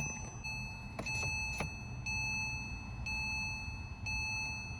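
Porsche 911 (997) warning chime beeping about once a second in long, steady tones. It is the car's signal that the shifter is out of park while the key is being turned off. A couple of short clicks come in about a second in.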